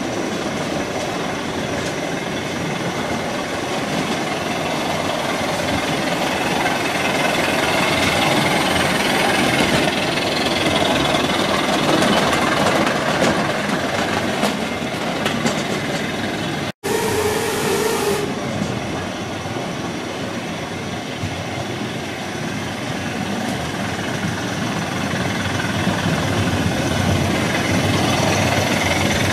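Model trains running on the layout's track: a steady rolling rattle of wheels on rails, with a momentary dropout just over halfway.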